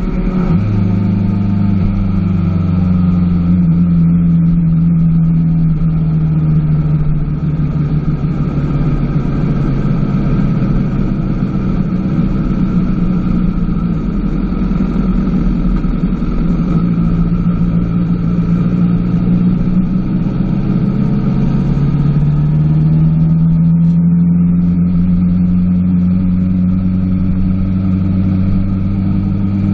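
Honda sportbike engine under way at a steady cruise, heard from on board. There is a gear change right at the start, and the engine note climbs slowly about three-quarters of the way through as the bike picks up speed.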